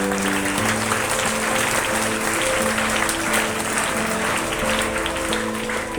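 Crowd applauding, a dense steady clapping, over background instrumental music playing slow, held notes.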